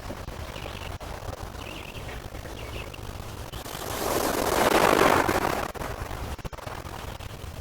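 A lake wave washing against the shore: a rushing splash that swells and fades over about two seconds midway through, over a steady low rumble, with faint bird chirps.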